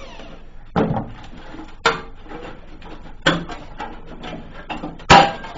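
Knocks and clanks of a cut-open steel muffler shell being handled and pried apart: about four separate sharp strikes, the loudest near the end.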